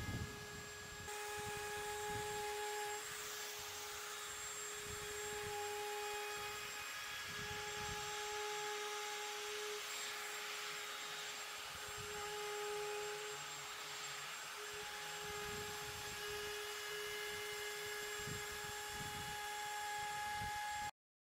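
Plunge router running with a steady high whine as it routes the edge of an epoxy-and-wood tabletop. The whine drops in and out as it cuts, then stops suddenly near the end.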